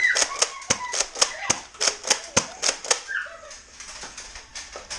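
Nerf foam-dart blasters being cocked and fired in quick succession: a fast, irregular run of sharp clicks and snaps, three or four a second, thinning out about three seconds in.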